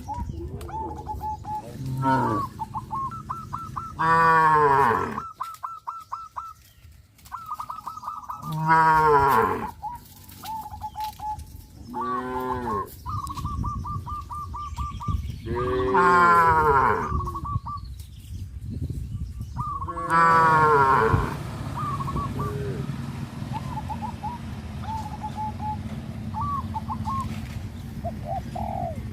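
Cows mooing again and again: about six long, loud moos, each falling in pitch, a few seconds apart. A thin high chirping runs between them, and the calls stop a little over two-thirds of the way through.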